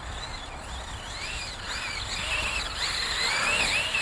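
Losi 8ight-E electric buggy's stock 2500 kV brushless motor and drivetrain whining, the pitch swooping up and down with the throttle and growing louder in the second half.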